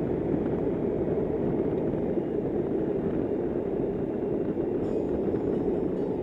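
Steady rumble of wind and road noise from a Honda Gold Wing motorcycle cruising at road speed.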